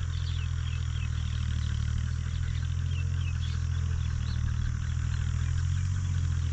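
Steady low rumble with a high hiss above it and faint short chirps scattered through.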